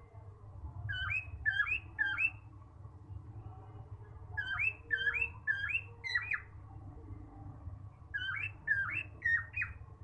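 Male cockatiel whistling: three runs of quick, sweeping whistled notes, three or four notes to a run, a few seconds apart, over a steady low hum.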